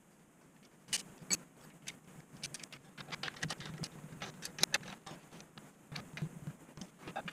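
Small metal clicks, taps and rattles of hand tools and parts being handled on a paramotor engine during reassembly, coming as quick, irregular ticks.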